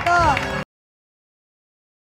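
A voice for about half a second, cut off abruptly, then dead silence.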